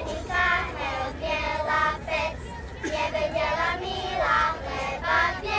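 A child singing a song, sustained wavering notes phrase after phrase.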